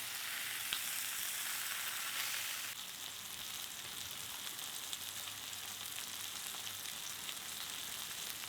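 Steak sizzling as it fries: a steady hiss with small crackles that eases slightly a few seconds in.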